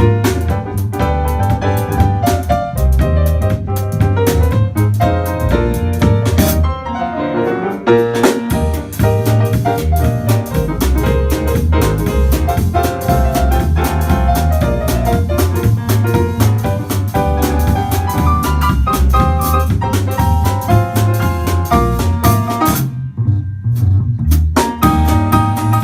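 A jazz-style instrumental trio playing, with piano and drum kit over a strong low line. The cymbals drop out briefly about seven seconds in. The band stops for a moment near the end, then comes back in.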